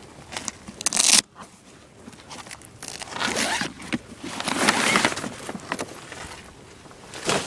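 A zipper being pulled in several rasping bursts: a short sharp one about a second in, two longer pulls in the middle and a brief one near the end.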